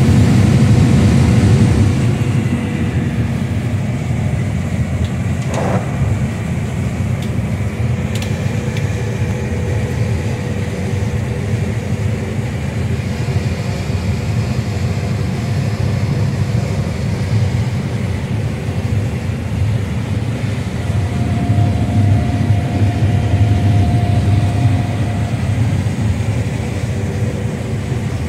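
Combine harvester running steadily under load while harvesting a crop, heard from inside the cab: a steady low engine and threshing drone with a faint steady whine above it.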